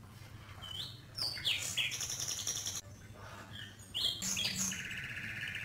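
High chirping and whistling sound effects: short sliding chirps in two bunches, then a buzzy warbling tone near the end, over a faint low hum.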